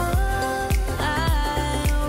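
Background music with a steady beat, a low thump a little under twice a second, under a gliding melody line.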